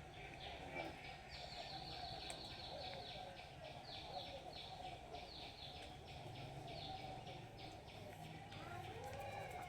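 A bird singing a long run of quick, falling high notes, repeated several times a second, over steady outdoor background noise.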